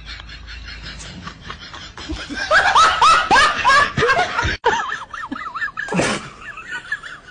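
A person laughing hard in a quick run of ha-ha bursts, starting about two and a half seconds in and cut off suddenly a couple of seconds later.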